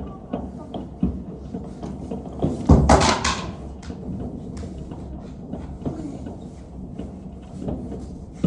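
New Year's Eve fireworks and firecrackers going off all around: a steady scatter of bangs and crackles, with a loud close burst of several bangs about three seconds in.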